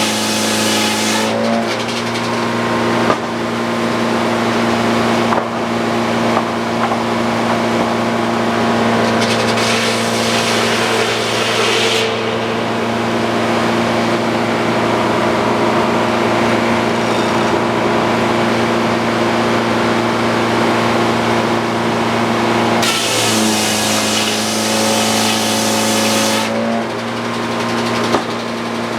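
Frick OO circular sawmill running while sawing an ash log into one-inch boards, its engine holding a steady hum. The engine pitch sags briefly about a second in and again about 23 seconds in, where a loud hiss stops and then returns.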